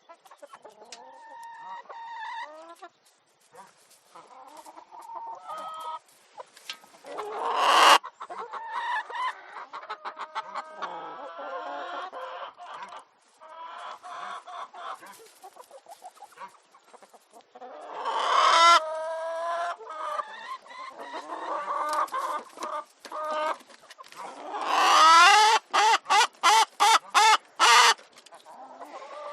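Domestic chickens clucking and calling, with a few loud calls about a quarter and two-thirds of the way through, and a run of quick, sharp cackles near the end.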